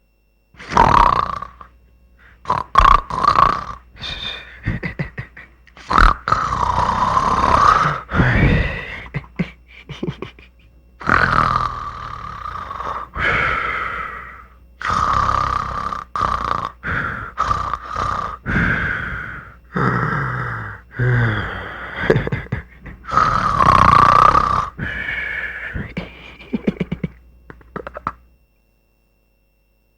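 Comic snoring sound effect: a run of irregular snores, snorts and grunts, breaking off about two seconds before the end.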